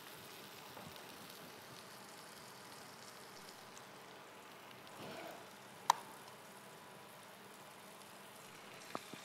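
Faint steady sizzle from a frying pan of cherry tomatoes and garlic left cooking on the hob. A single sharp click comes about six seconds in.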